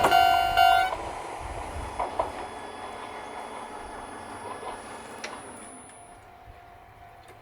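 Level crossing warning bell ringing in a rapid repeating pattern, cutting off about a second in as the train clears. The train's running noise on the rails then fades steadily away, with a few faint clanks.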